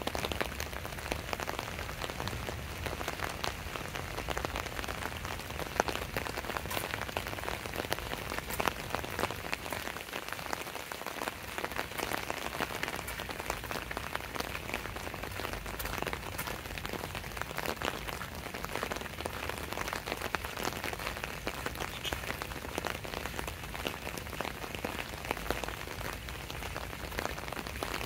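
Steady rain: an even hiss with many sharp, separate drop hits throughout.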